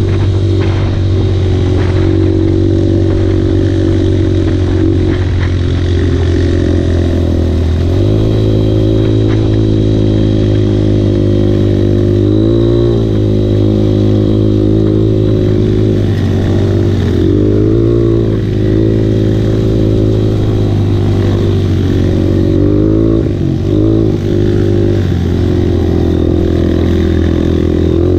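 Off-road motorcycle engine running as the bike rides a dirt track, loud and close. Its note holds steady, then changes pitch several times as the throttle is worked, about 8 and 12 seconds in and again in a few quick rises and dips later on.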